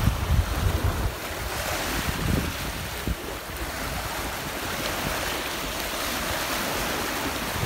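Sea waves washing steadily onto the shore, with wind buffeting the microphone for about the first second.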